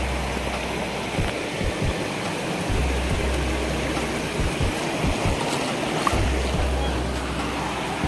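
Shallow mountain stream running over pebbles and past rocks, a steady rushing and trickling of water. Low background music sits underneath, its bass notes coming and going.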